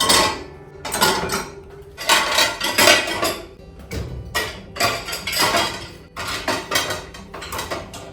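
Dishes and cutlery clattering and clinking as they are handled and loaded into a dishwasher, a string of irregular clatters, over soft background music.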